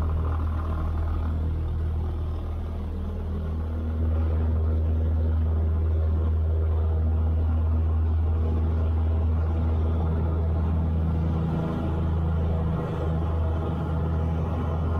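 Cessna 172's piston engine and propeller running steadily in flight, heard from inside the cockpit, getting louder about four seconds in.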